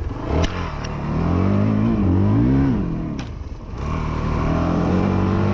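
Honda CRF450L's single-cylinder four-stroke engine revving up and down under throttle on a trail ride: the pitch climbs for a couple of seconds, drops off briefly about three seconds in, then holds at higher revs. A few sharp knocks come in, the first about half a second in and another near the dip.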